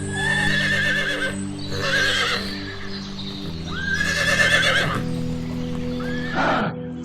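Horse whinnying with a trembling pitch, several times, over steady background music.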